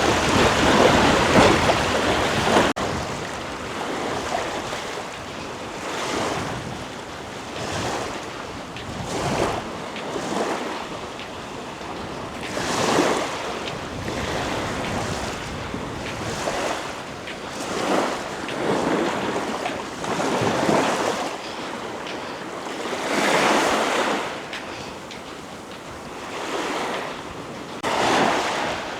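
Ocean surf washing onto the beach, the rush of the waves swelling and fading every few seconds, with wind buffeting the microphone. The noise is louder in the first couple of seconds, then drops off suddenly.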